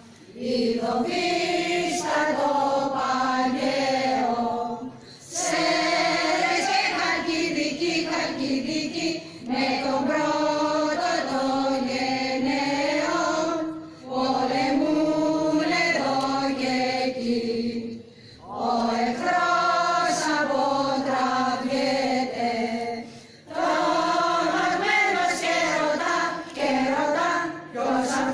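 A choir singing a slow, chant-like piece in phrases of about four to five seconds, each broken by a short pause.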